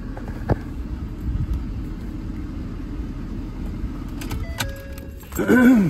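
Ford 6.7-litre Power Stroke V8 turbo-diesel idling steadily, a low rumble heard from inside the truck's cab, with a single click about half a second in.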